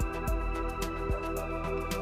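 Background music: a steady drum beat with regular low kicks and quick high ticks over sustained held notes.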